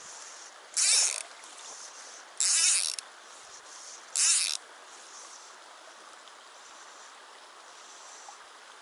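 Three short, loud buzzes of a fly reel's click-and-pawl drag as line is pulled off it, about a second in, at two and a half seconds and just after four seconds, over the steady rush of a shallow mountain stream.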